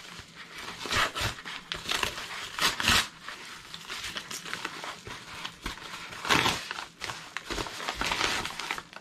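A yellow Amazon padded mailer envelope being pulled open and handled, with irregular crinkling and ripping of the paper. The loudest rustles come about three seconds in and again a little after six seconds.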